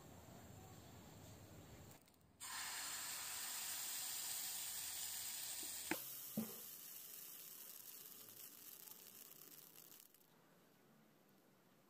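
Baghrir batter sizzling in a hot nonstick frying pan: a steady hiss that starts suddenly about two seconds in and slowly fades away. Two short clicks come about halfway through.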